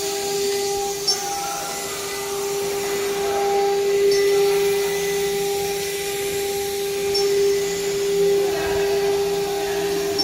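Leapion 1325 CNC router's spindle running at a steady high-pitched whine as its cutter mills aluminium, with the rush of cutting noise underneath. There are two brief sharp ticks, about a second in and again about seven seconds in.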